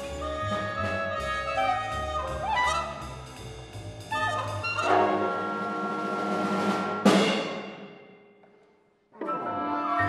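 Contemporary classical ensemble music: layered held tones over a low drone, swelling about four seconds in. A sharp loud accent near the seventh second dies away to a brief silence, and the ensemble comes back in near the end.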